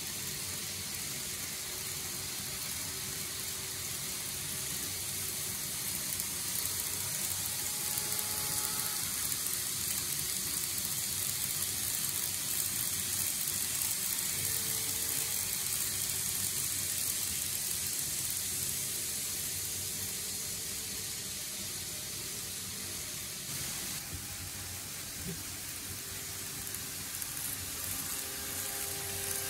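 N-gauge model trains running on plastic track: a steady rolling hiss of small wheels on the rails, with faint motor whine now and then. It gets a little louder in the middle as a train passes close, then eases off.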